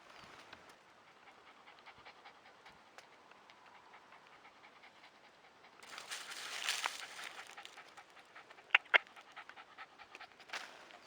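A dog panting, louder from about six seconds in, with two sharp clicks about nine seconds in.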